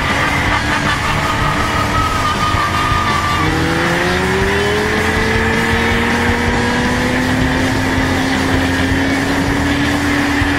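Sport motorcycle engines running at high revs while a rear tyre spins in a burnout. From about a third of the way in, one engine's pitch climbs slowly and steadily as the bike pulls away in a rolling burnout.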